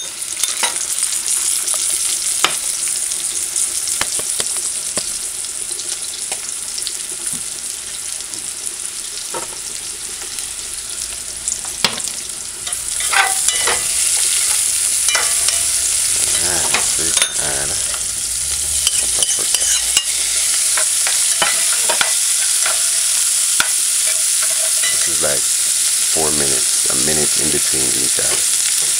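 Sliced onion, scallion and green bell pepper sizzling in a metal pot, stirred with a metal slotted spoon that scrapes and clicks against the pot. The sizzle gets louder about halfway through.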